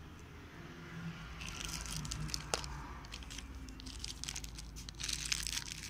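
Crinkling and rustling of packaging being handled, with scattered sharp clicks. It starts about a second and a half in and is densest near the end.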